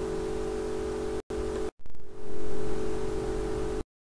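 A steady background hum of several tones, broken by sudden dead-silent gaps about a second in, a little later, and again near the end.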